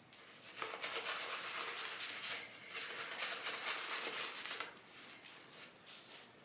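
Razorock Beehive synthetic shaving brush whipping Dr. Selby shaving cream and added water into a lather: two stretches of brisk wet swishing, each about two seconds, with a short pause between, then softer brushing.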